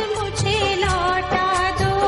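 Bollywood film song played over a loudspeaker, with a singing voice over a steady drum beat.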